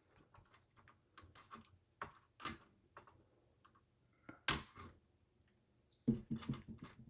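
Light clicks and taps of the hard plastic fan cover of a mini PC being handled and fitted in the hands. Scattered single clicks, the sharpest about four and a half seconds in, then a quick run of taps near the end.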